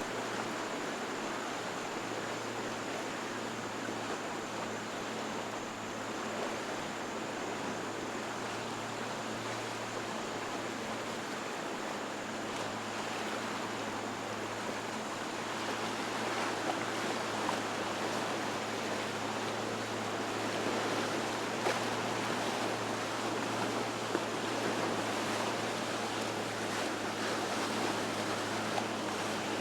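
Water rushing and churning in a fast canal current, with a steady low drone of boat engines underneath. It grows a little louder about halfway through, with a few sharp slaps or ticks.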